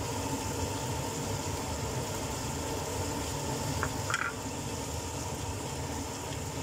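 Chicken and carrots sizzling gently in a frying pan over a gas burner, over a steady low hum. About four seconds in, a silicone spatula stirs them with a couple of light clicks against the pan.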